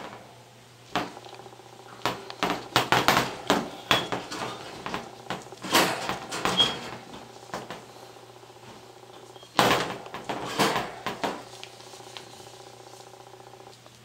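Small wire-mesh metal cage handled, its thin wires clinking and rattling against each other and the frame in several bursts of clatter.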